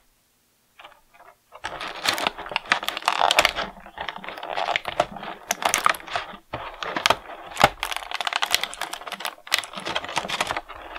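A stiff clear plastic blister tray crinkling and clicking under the fingers as an action figure and its accessories are worked loose from it. The dense clicking starts about a second and a half in.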